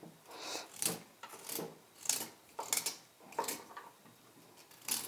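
Kitchen knife slicing through a raw carrot onto a cutting board: a steady series of crisp cuts, about one every half second or so, with a short pause about four seconds in.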